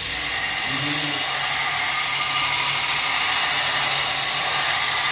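Belt grinder running with a steady high whine as a hardened steel knife blade is ground against the abrasive belt, reprofiling the edge, which is left too thick by the repair.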